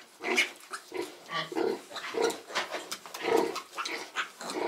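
Sow grunting in a steady rhythm, about twice a second, while nursing her litter, with short high squeaks from the piglets jostling at the teats. These are the rhythmic nursing grunts a sow makes while suckling.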